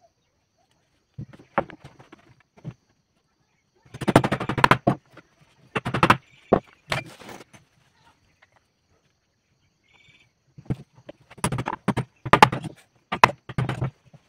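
Rapid clattering knocks of wood and tools being handled on a wooden workbench, in several bursts with quiet gaps between.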